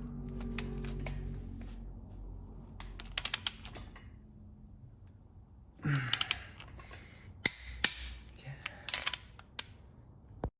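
Sharp metallic clicks and clinks from hand tools and engine parts being handled, in scattered groups, with a quick run of three or four about three seconds in.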